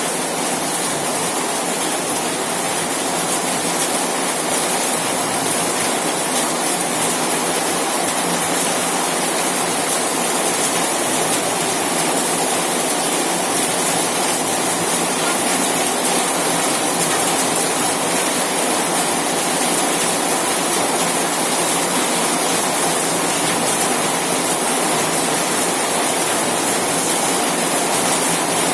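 Rain falling on a corrugated zinc roof: a dense, steady hiss of countless drops on the metal sheeting.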